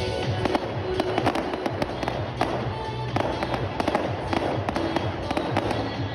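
Fireworks display: a rapid run of bangs and crackles from exploding shells, over music with a pulsing bass line.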